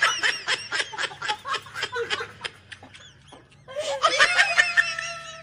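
High-pitched giggling laughter in a rapid string of short bursts, breaking into a long squealing laugh about four seconds in.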